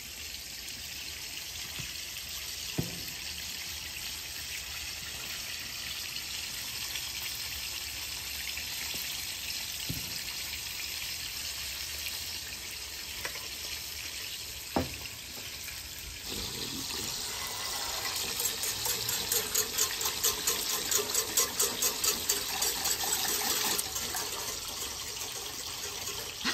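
Pancake batter sizzling in melted butter on a hot flat-top griddle, with a few light knocks as batter is spooned on. From a little past halfway the sizzling grows louder and crackles rapidly.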